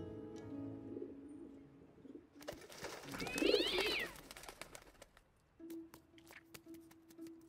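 Pigeons taking off in a loud burst of wing flapping about halfway through, lasting a second or two, with a kitten's short gliding cry over it. Soft film-score music with held notes is heard before it, and a single held note with light clicks comes after.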